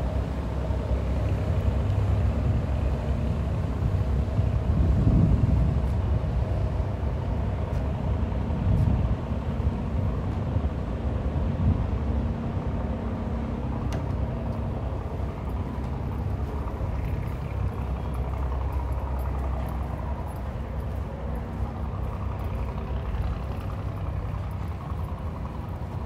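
Steady low rumble of engines and traffic, with a faint hum and a louder swell about five seconds in.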